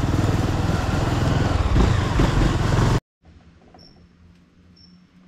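Motorcycle riding over a cobblestone street: engine, wind and road noise. About three seconds in it cuts off abruptly to a quiet scene with a faint steady hum and short high chirps about once a second.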